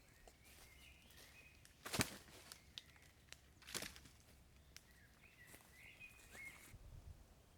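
Two sharp knocks, the louder about two seconds in and another near four seconds, among lighter clicks and rustling in a forest camp. A thin, wavering bird call sounds twice in the background.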